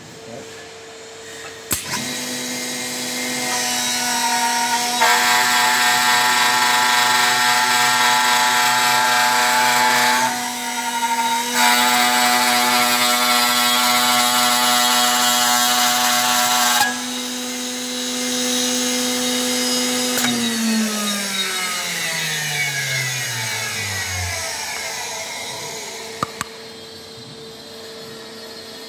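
Finger-hole milling machine: its electric motor is switched on with a click and runs with a steady hum. The cutter then mills a grip recess into a wooden workpiece in two loud passes with a short break between them. About two-thirds of the way through the motor is switched off and its hum falls in pitch as it spins down.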